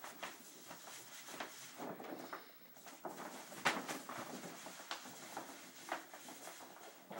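Faint, irregular rustling and crackling of a large plastic-backed wall-decal sheet being handled and shaken out, with a sharper crackle a little past halfway.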